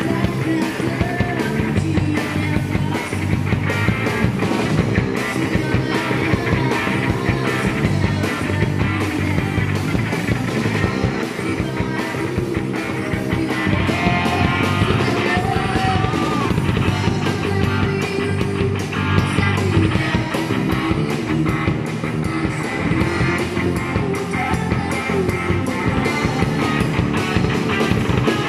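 Live rock band playing: a woman sings into a handheld microphone over electric guitar and a drum kit.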